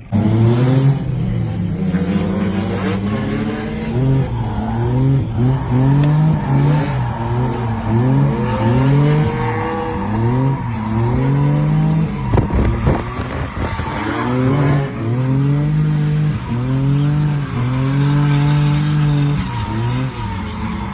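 Drift car engine revving hard, its pitch climbing and dropping again and again as the throttle is worked through a drift, over tyre squeal.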